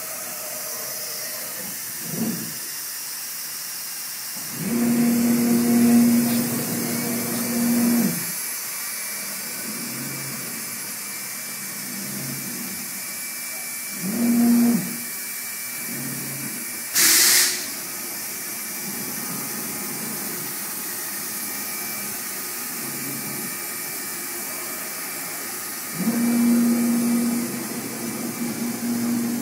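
2007 MultiCam 3000 series CNC router running a job in the air without cutting: its spindle gives a steady hiss, with three louder humming stretches as the gantry and head move. A short loud hiss about 17 seconds in.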